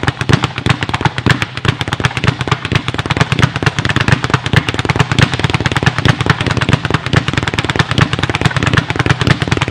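Speed bag being hit in a fast fist-rolling rhythm: a continuous rattle of sharp punches and rebounds, several hits a second.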